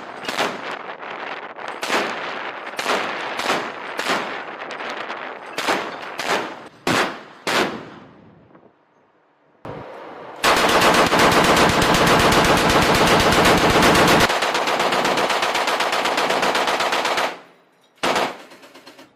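Shipboard heavy machine guns firing at sea. First come single shots and short bursts, each trailing off in an echo. After a short lull comes one long, very rapid continuous burst lasting about seven seconds, followed by a couple of last shots.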